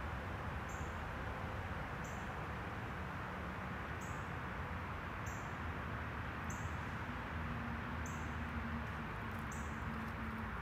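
Steady outdoor hiss with a short, high-pitched chirp repeating about once a second from a small animal.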